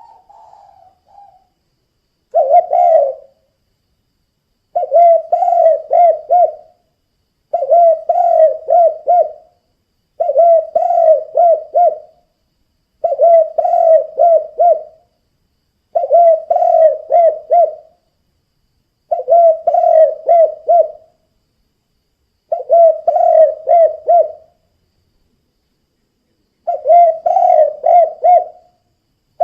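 Spotted dove cooing in the song style keepers call 'kuk 2': a phrase of several quick coos repeated about nine times, roughly once every three seconds, after a faint call at the very start.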